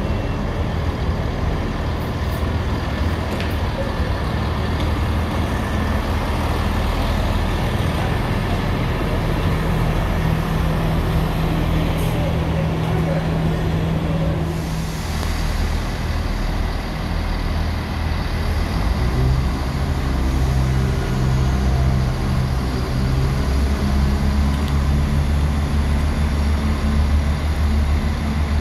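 Diesel train engines running with a steady low drone, the engine note changing several times.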